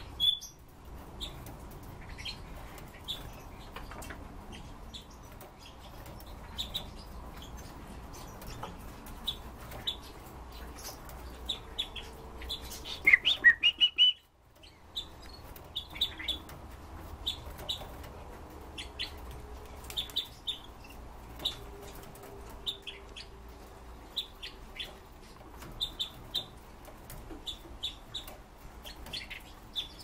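Caged red-billed leiothrix (Pekin robins) giving short, high chirping calls scattered throughout, with a louder run of quick calls at about 13 seconds in, along with soft clicks of hopping and wing flutters.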